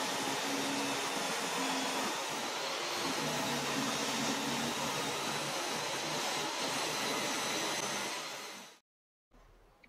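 Table saw running steadily while a small wooden block is pushed through the blade. The noise fades about eight seconds in and then cuts off suddenly.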